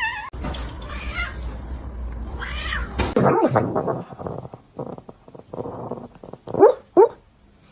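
A cat meowing and yowling repeatedly, over a low rumbling noise for the first few seconds. Two short, loud cries rising in pitch near the end are the loudest sounds.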